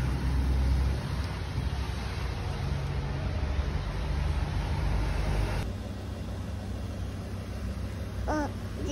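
Steady low rumble of road traffic and motor vehicles running close by. The sound changes abruptly about two-thirds of the way in, and a short high voice is heard near the end.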